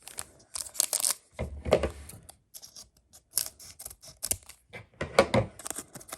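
Panini Donruss Optic basketball cards being flipped through by hand, each glossy card sliding off the stack with a short scraping snap, with two heavier knocks, about two seconds in and about five seconds in.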